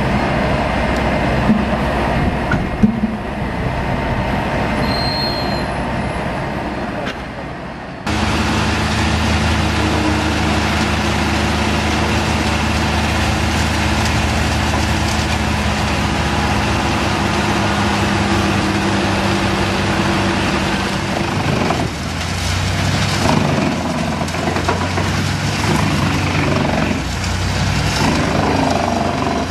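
Heavy diesel machinery running: a wheeled log-handling excavator working beside a tractor. The sound changes abruptly about eight seconds in and again around twenty-two seconds. Between those changes is a steady engine drone.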